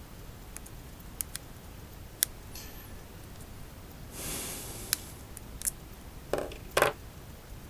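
Hand tools and small parts being handled while a screwdriver bit is picked out for the unicycle's casing screws: scattered small clicks, a short rustle in the middle and two louder knocks near the end.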